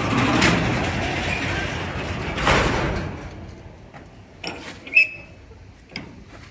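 Garage door closing: a loud, noisy run of about three seconds, then several sharp clicks and knocks, the loudest about five seconds in.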